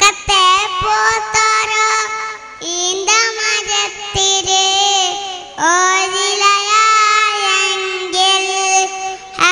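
A young child singing an action song into a microphone over a PA, in long, held phrases with short breaths between them.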